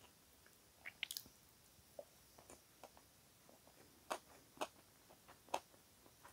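Close-up eating sounds from roast chicken: soft, irregular wet chewing clicks and smacks of the mouth, with a few sharper clicks about a second in and several more in the second half.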